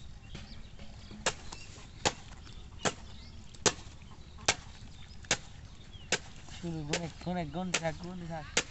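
Sharp knocks repeating evenly, a little more than one a second, with a short wavering voice near the end.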